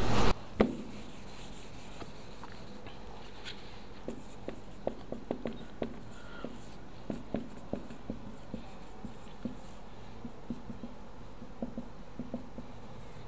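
Marker pen writing on a whiteboard: a scatter of short taps and thin squeaks as the strokes are drawn, thickest through the middle of the stretch.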